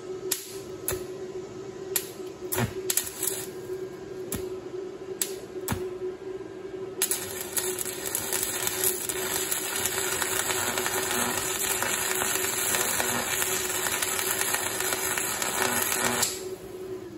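Arc welder on steel: short, separate crackles of the arc being struck for the first several seconds, then a continuous crackling, spattering bead for about nine seconds that cuts off shortly before the end.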